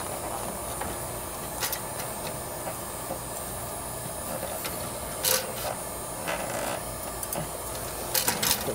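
Occasional small metal clicks and a brief scrape as a lock nut is worked onto a cable connector in the sheet-metal panel of an AC condenser unit, over steady background noise.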